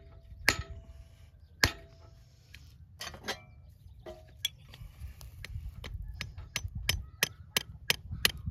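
Farrier's hammer striking steel while shoeing a donkey's hoof. There are two sharp single blows in the first two seconds, then a run of quick lighter taps, about three a second, near the end, on a flat steel tool held against the hoof wall.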